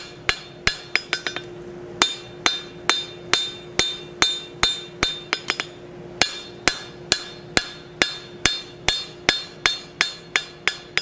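Blacksmith's cross-peen hammer striking a hot steel oak leaf on an anvil with its flat face: even ringing blows, about three a second, with a quick run of light taps and a short pause near the start. The leaf is being planished to smooth out the cross-peen texture, with blows to each side of centre to leave a shallow bump down the middle.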